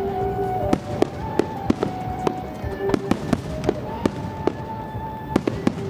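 Aerial firework shells bursting in an irregular run of sharp bangs, about a dozen, over music with long held notes.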